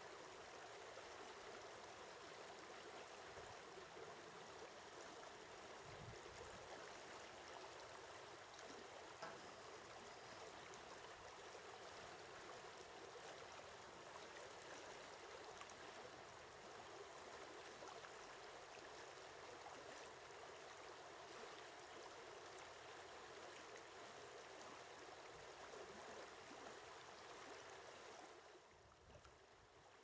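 Faint, steady rushing of running water, dropping a little in level near the end.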